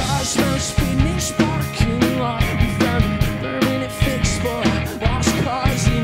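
Rock band playing live: electric bass, electric guitar and a drum kit with cymbals on a steady beat of about three hits a second, with a man singing over it.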